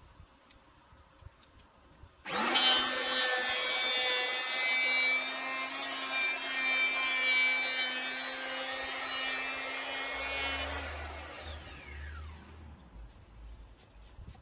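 Bosch PHO 2000 electric hand planer switched on about two seconds in and planing along a wooden board for about eight seconds, then switched off, its whine falling as the cutter drum winds down.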